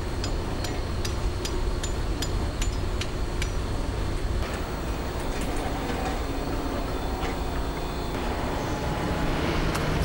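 Construction-site noise: a steady low rumble of machinery, with rapid metallic hammering taps, about three a second, over the first three seconds or so and a few further taps later.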